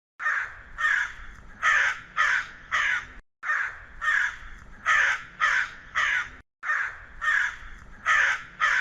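A crow cawing: harsh, repeated caws in three quick bouts of about five calls each, with brief pauses between the bouts.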